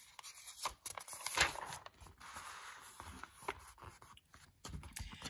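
A page of a paperback book being turned and handled: quiet, irregular paper rustling and crinkling with several sharp ticks.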